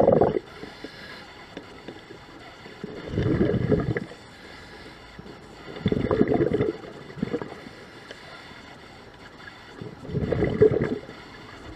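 Scuba diver's exhaled bubbles rushing out of the regulator in bursts of about a second, one at the start and then three more every three to four seconds, each breath out in turn.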